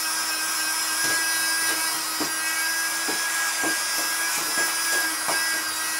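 Small electric cleaning brush running with a steady motor hum while its bristles scrub dust off a TV circuit board in short, irregular strokes, about one or two a second.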